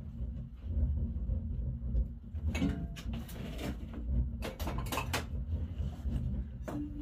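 Household things being handled on the floor: a few knocks and clatters, with a short rustling stretch about halfway through, over a low steady rumble.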